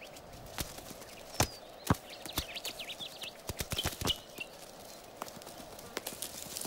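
Oogpister beetle's footsteps: light, irregular taps as it walks over gravelly ground, with a few short high chirps in the middle.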